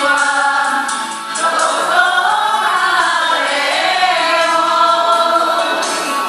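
A small group of voices singing a Japanese song together, with held, gliding notes.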